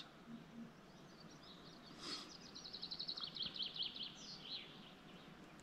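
A songbird singing a quick run of high notes, starting about two seconds in and falling slightly in pitch, over a quiet background.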